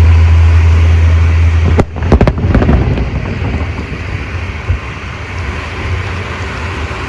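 Fireworks display: a heavy, steady low rumble cuts off about two seconds in, followed at once by a quick run of sharp bangs and crackles, then a fading wash of noise.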